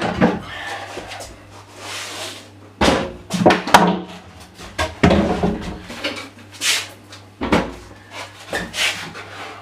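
A DeWalt job site table saw is lifted out of a plywood box and set down on a concrete floor, and the empty box is turned over. The result is an irregular run of wooden knocks, scrapes and thuds, the sharpest cluster a little over a third of the way in.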